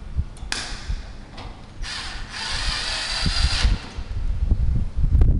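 Power drill-driver running in two short spurts, the second about two seconds long, driving in the faceplate screws of a door's spring latch, with low thumps throughout.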